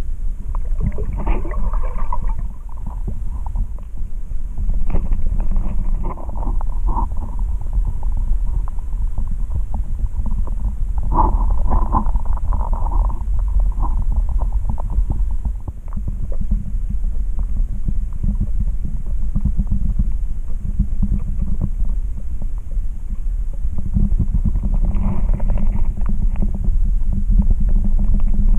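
Underwater sound picked up by a submerged camera: a dense, muffled low rumble of water moving around the housing as the snorkeler swims, with a few brief louder bubbling bursts.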